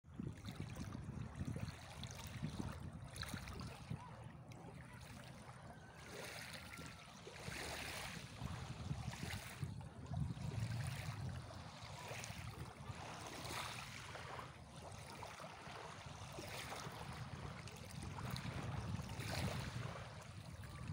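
Small waves lapping and washing over a pebble shore, in soft surges every second or two, over a steady low rumble.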